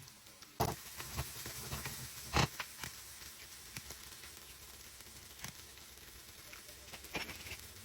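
Food sizzling in a hot frying pan. It starts suddenly about half a second in as the food goes into the pan, and crackles and pops on top of a steady sizzle.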